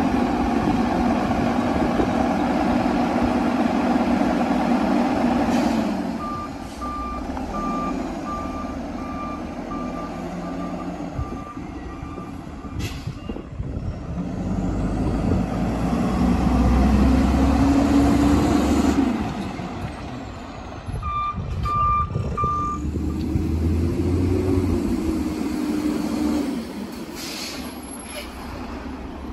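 Autocar WXLL Labrie MSL garbage truck: the engine runs loud and steady, then its backup alarm beeps about one and a half times a second for several seconds while it reverses. The engine then revs up as it pulls forward, followed by a second short burst of backup beeps and another rev.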